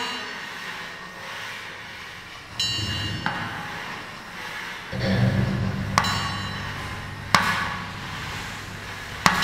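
Metal being struck: a ringing clang, then several sharp knocks, with a low steady mechanical hum that comes in about halfway through.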